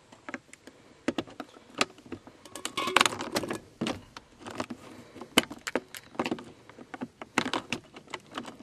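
Car key and keyring jangling, with sharp clicks, as the key is jiggled in a Nissan Sentra's ignition lock that is stuck locked. The jingling comes in a few flurries, the busiest about three seconds in and again near the end.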